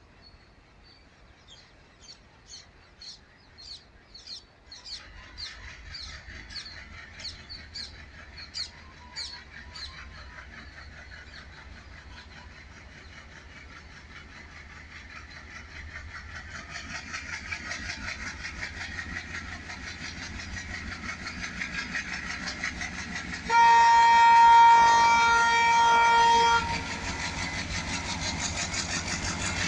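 WDM-3D ALCO diesel locomotive hauling an LHB passenger train as it approaches, its rumble building steadily. Near the end comes one loud horn blast of about three seconds, then wheels clattering over rail joints as it draws close. A bird calls repeatedly over the first several seconds.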